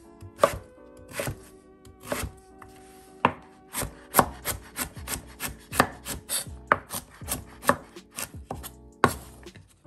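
Chef's knife chopping sweet potato into small dice on a wooden cutting board: a few spaced strokes, then steady chopping at about three strokes a second, stopping shortly before the end.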